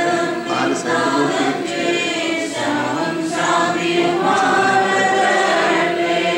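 Choir and congregation singing a Malankara Orthodox liturgical hymn, many voices together in a sustained chant-like melody.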